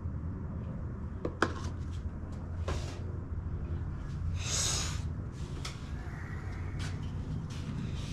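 Light handling noises: a few scattered clicks and knocks and a brief rustle about halfway through as a plastic oil funnel is pulled out of the engine's fill tube and set aside. A steady low hum runs underneath.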